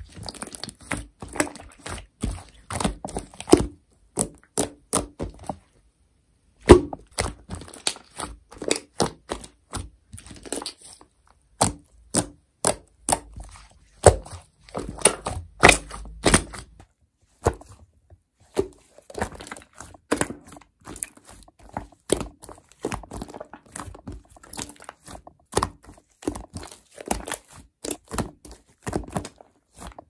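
Thick white fluffy slime being pressed and squeezed by hand, giving an irregular run of sticky pops, clicks and squelches, with a few brief pauses.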